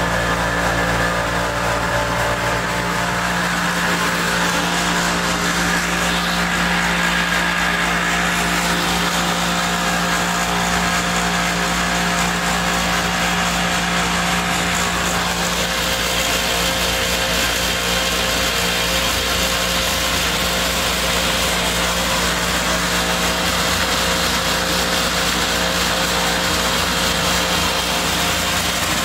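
Animal-feed pellet mill running steadily with a constant machine hum while pressing feed into pellets.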